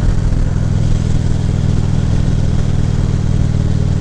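Harley-Davidson Ultra Limited's V-twin engine running steadily while riding, its low exhaust note constant throughout.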